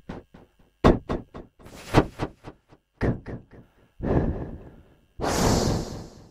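A man pronouncing isolated voiceless English consonant sounds one after another (p, t, f, k, h, s, ch, sh, wh, th) as a pronunciation drill: a row of short pops and breathy hisses with no vowel, ending in a long hiss about five seconds in.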